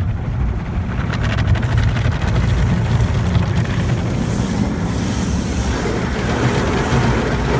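Automatic tunnel car wash spraying water and foam over the car, heard from inside the cabin: a steady rushing wash over a low, constant hum, with the hissing spray getting stronger about four seconds in.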